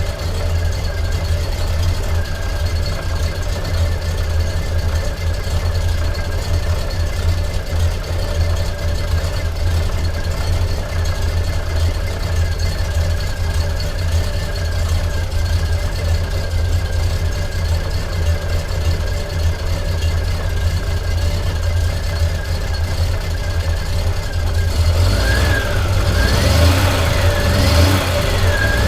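Triumph TR5's straight-six engine idling steadily, then revved up and down in several quick blips near the end.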